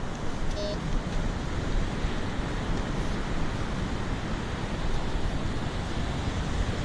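Wind buffeting the microphone over the steady wash of ocean surf, with a brief high beep about half a second in.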